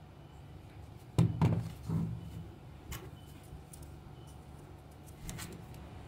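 Hard plastic toy track pieces knocking and clicking as they are handled and pulled apart: a few short knocks, the loudest about a second in, over a steady low hum.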